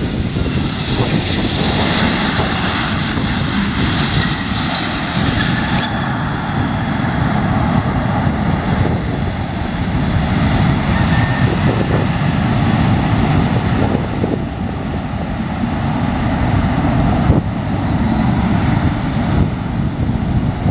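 Aircraft engines passing close by: a high whine falls in pitch over the first few seconds, above a steady low rumble that carries on to the end.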